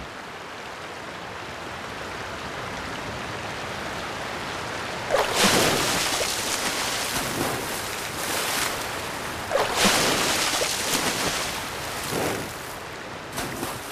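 Brown bear lunging through river water after salmon: sudden heavy splashes about five seconds in and again near ten seconds, then a smaller one near the end, over a steady wash of moving water.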